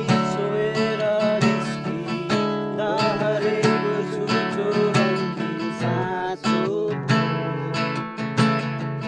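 Acoustic guitar strummed in a steady rhythm of about two strokes a second, with a voice singing along.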